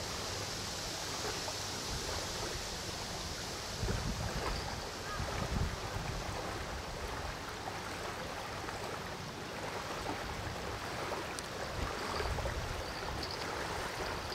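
Steady hiss of wind and river water lapping at the bank, with gusts of wind buffeting the microphone about four seconds in and again near the end.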